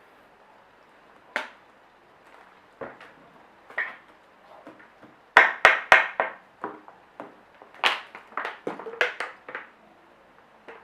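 Homemade shaving-foam slime being squeezed and slapped by hand, giving irregular sharp clicks and smacks. The clicks bunch together about five to six seconds in and again about eight to nine and a half seconds in.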